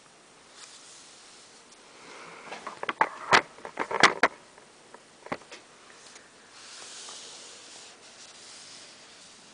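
Handling noise on a desk: a quick run of clicks and knocks about three to four seconds in, with a few lighter ticks after, as a small foam diorama and figure are picked up and moved about. A soft hiss follows near the end.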